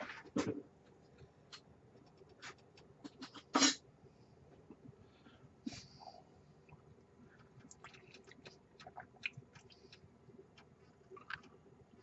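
Quiet kitchen handling and tasting noises: scattered small clicks and knocks, such as a spoon against a pot, with mouth sounds of tasting the sauce. One louder knock comes about three and a half seconds in.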